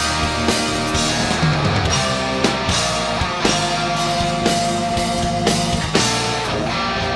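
Hard rock band playing live through a concert PA: distorted electric guitars, bass and a drum kit keeping a steady beat, with a long held guitar note in the middle.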